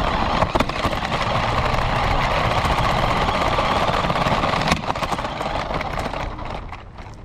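Radio-controlled car driving, its motor and wheels heard up close as a steady, noisy whirr. A sharp knock comes about two-thirds through, and the sound dies down near the end.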